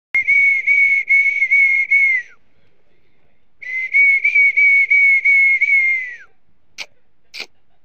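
High-pitched whistling: two long stretches of one steady whistled note, each pulsing about twice a second and ending in a short downward glide, with a pause of about a second between them. Sharp ticks about every 0.6 s follow near the end.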